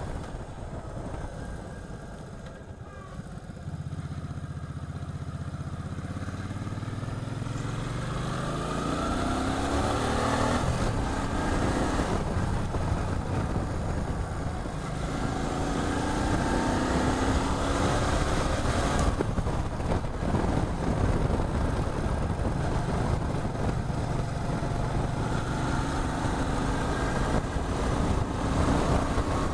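Motorcycle engine running under way, rising in pitch several times as it accelerates, over a steady rush of wind and road noise.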